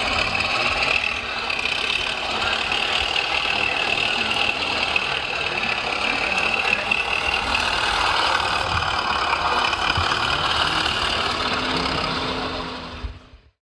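Radio-controlled heavy construction models running: a steady mechanical whine of motors and gearing over a low rumble, fading out near the end.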